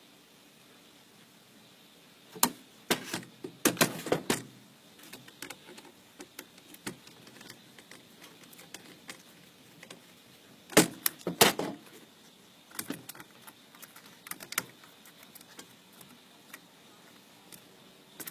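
Small metal clicks and rattles of screws and a screwdriver as screws are put in to fasten a microwave's control board: two louder bursts of clatter, a few seconds in and about halfway, with scattered light ticks between.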